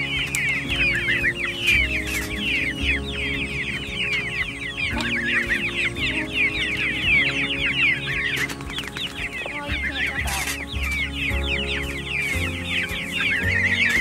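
A flock of young chickens peeping without pause, many short high cheeps overlapping. Background music with held notes plays underneath.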